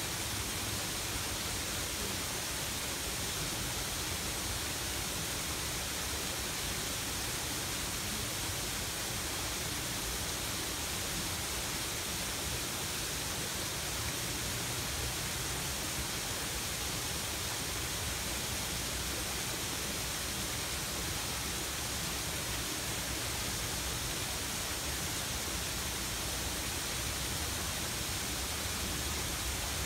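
Steady, unbroken rush of a waterfall spilling into a pond.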